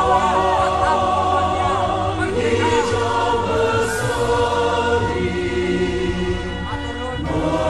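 Music with a choir of several voices singing, holding long steady notes.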